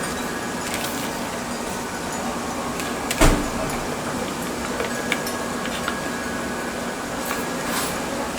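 Steady background noise from outside with a faint hum under it, and the handling of album contents: a sharp knock about three seconds in, then a few light clicks.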